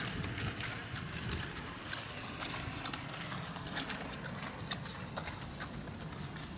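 A pony walking, its hooves clip-clopping on hard ground in scattered, irregular steps.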